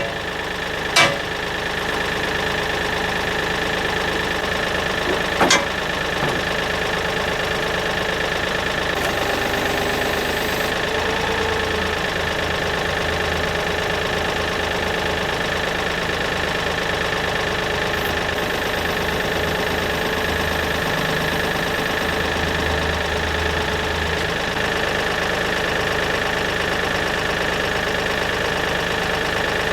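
Kioti tractor-backhoe's diesel engine idling steadily, with a sharp click about a second in and another just past five seconds.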